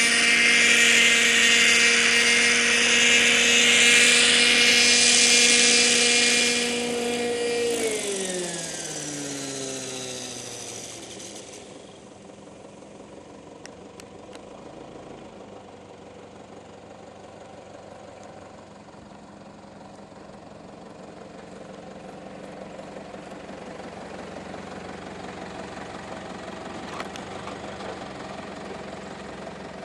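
Thunder Tiger Raptor 50 nitro RC helicopter hovering with a steady high whine, then its engine and rotor spin down about eight seconds in, the pitch gliding down and fading out, leaving only a low background.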